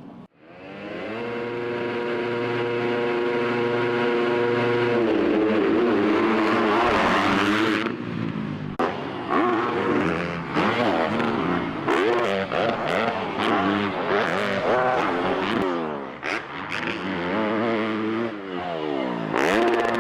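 Yamaha YZ250F single-cylinder four-stroke dirt bike engine running at a steady note for the first few seconds, then revving up and down over and over as the throttle is opened and shut.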